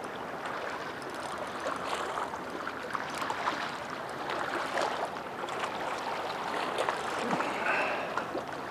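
Water lapping and splashing steadily, with many light clicks running through it from a Shimano Stradic CI4 spinning reel being cranked as a small fish is reeled in.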